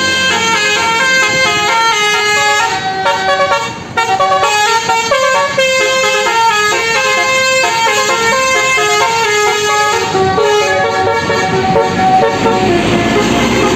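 Telolet multi-tone bus horn playing a quick melodic tune of stepped notes. A rushing noise builds near the end.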